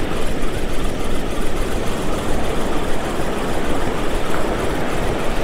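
Wind buffeting the microphone, a heavy rumble, over the steady wash of surf breaking on the beach.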